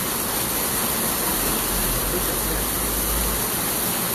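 Hail drumming on the roof: a steady, loud rushing hiss with no break.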